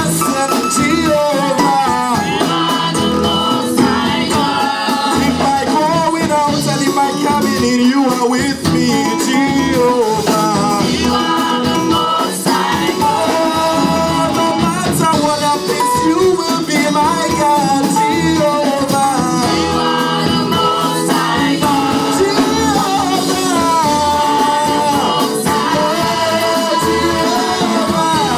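Live amplified gospel praise music: a church worship team singing into microphones over band accompaniment with a steady beat.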